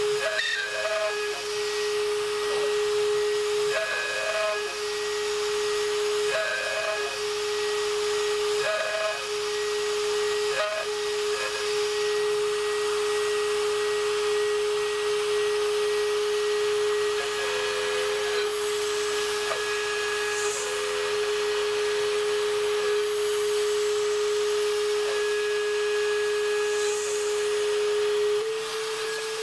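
Mafell FM 1000 trim router, serving as a DIY CNC mill's spindle, whining at one steady high pitch over a hiss as its end mill cuts 5083 aluminium plate. There are short chirps every couple of seconds in the first ten seconds, and near the end the whine steps up slightly in pitch.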